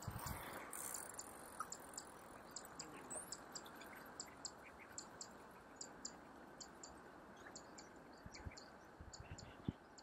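Faint, high-pitched ticking chirps of an insect, repeating about three times a second, often in pairs, over a steady low hiss.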